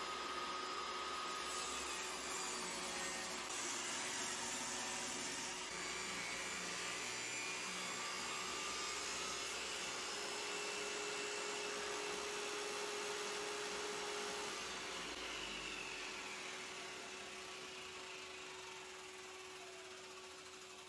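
Table saw running and cutting wood: ripping a pine board, then resawing a hickory board on edge. The saw sound is steady and changes abruptly a few times, then fades over the last few seconds.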